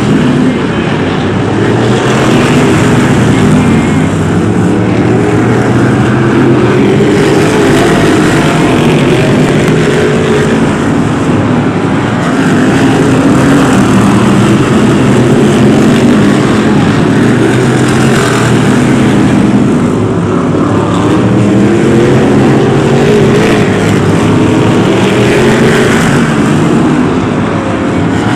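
Several BriSCA F1 stock cars' V8 engines racing together, their pitches rising and falling as they accelerate and lift round the oval.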